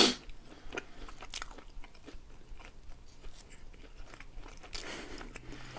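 Close-miked eating of sausage rolls: a sharp bite at the start, then quiet chewing of the pastry with scattered small crunches.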